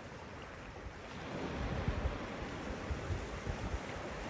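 Sea waves washing onto the shore, the surf swelling a little about a second in, with wind rumbling unevenly on the microphone.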